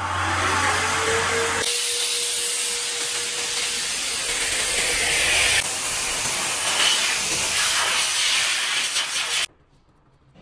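Electric car-drying air blower (BLS) running at full speed, a loud steady rush of air through its hose nozzle as it blows water off the car's paint and glass. Its motor whine rises to a steady pitch in the first second and a half. The rush changes in tone abruptly a couple of times and cuts off suddenly near the end.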